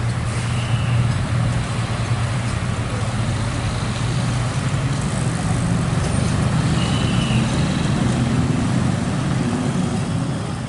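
Road traffic dominated by a large vehicle's engine running close by, a steady low hum over the wash of passing traffic; the engine's pitch rises a little about halfway through.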